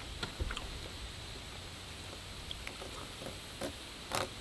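A fork working at cooked catfish on a plate: a few faint taps and clicks just after the start and two more near the end.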